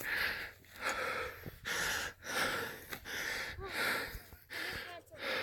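A person breathing hard, quick rhythmic breaths close to the microphone, about two a second.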